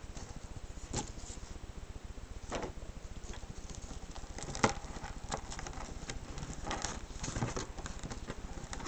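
Fingers rolling a strip of masking tape around visco fuse into a tight tube close to the microphone: soft rustling with scattered small clicks and crackles.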